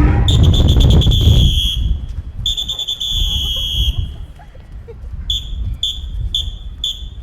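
High-pitched electronic beeping: two long beeps, then four short ones in quick succession. Low wind rumble on the microphone under the first beeps.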